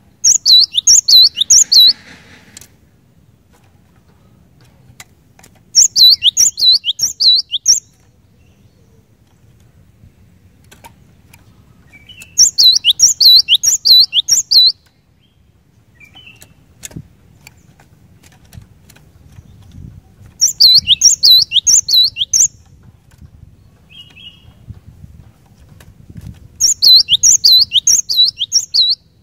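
Cinereous tit (glatik batu) singing: five loud phrases, about six seconds apart, each a quick run of high notes that slide downward, lasting about two seconds.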